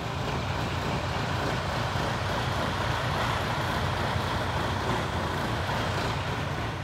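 Steady motor-vehicle noise with a low rumble, typical of a diesel coach bus's engine running nearby.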